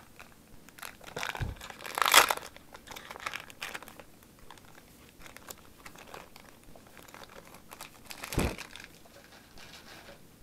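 Foil booster-pack wrapper crinkling and being torn open by hand, the loudest rip about two seconds in, with a couple of soft knocks as the pack is handled.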